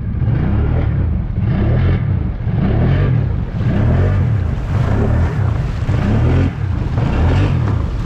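Can-Am Outlander 850 ATV's V-twin engine revving up and down over and over, the pitch rising and falling less than a second apart, over a steady rushing noise.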